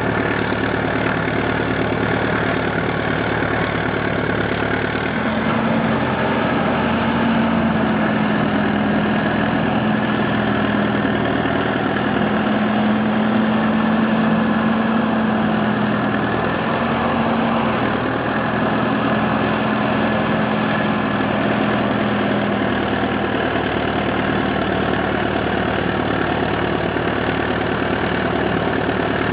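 Tractor engine running steadily. About five seconds in its pitch rises a little, then it sags and picks up a few times before it settles again near the end.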